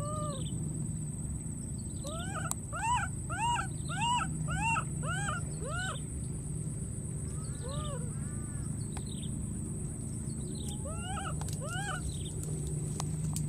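Baby macaque calling in short cries that rise and fall in pitch: one at the start, a quick run of about seven, two a second, a couple of seconds in, then a single cry and a pair near the end.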